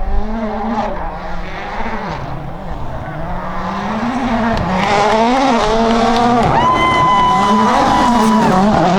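Toyota Yaris WRC rally car's turbocharged 1.6-litre four-cylinder engine revving up and down through gear changes, growing louder about halfway through as the car comes closer. A steady high tone, like a whistle, sounds over it for nearly two seconds about two-thirds of the way in.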